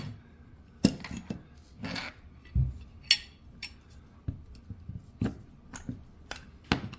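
A homemade saw-blade knife with epoxied handle scales being handled and worked loose on a workbench: about a dozen irregular, sharp metallic knocks and clinks, with one duller thump a few seconds in.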